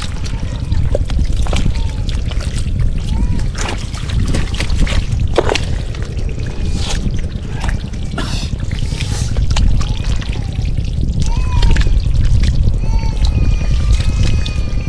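Water trickling, pouring and splashing, with scattered small knocks and splashes throughout.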